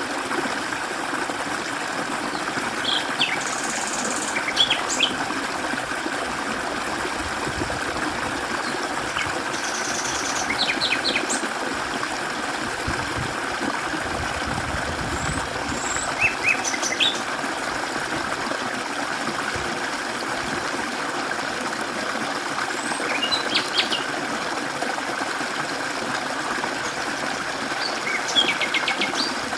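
Mountain stream flowing steadily over rocks. Small birds chirp in short bursts every few seconds.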